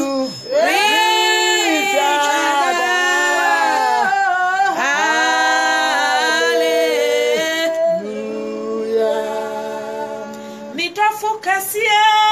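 Women singing a gospel song a cappella, without instruments: one voice leads with long held notes and slides between pitches, with a second woman singing along. The singing drops to softer, lower held notes about two-thirds of the way through, then comes back loud near the end.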